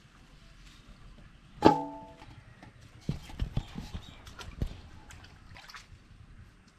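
A metal bowl is struck once and rings briefly. Several dull knocks and taps follow over the next couple of seconds.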